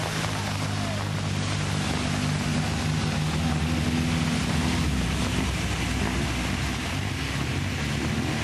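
Engines of several small hatchback competition cars running at fairly steady revs as they drive up a wet road. Under them is an even hiss of tyres on the wet tarmac and rain.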